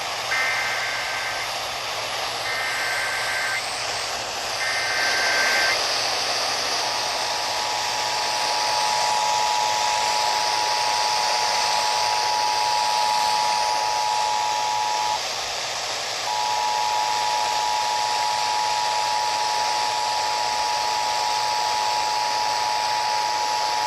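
Emergency Alert System header opening a new warning: three one-second bursts of SAME data tones, a harsh warbling screech, followed by the two-tone attention signal, a steady dual-pitched beep that breaks off for about a second midway, all over a constant static hiss.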